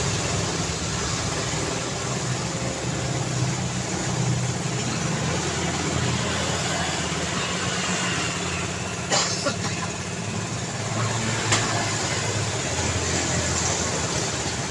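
Road traffic: a steady drone of vehicle engines and tyres on the road. Two short sharp clacks stand out, about nine seconds in and again two seconds later.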